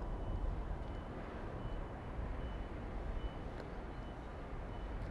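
Freight train's container wagons rolling away over the rails, a steady low rumble. A faint high beep repeats a little more than once a second.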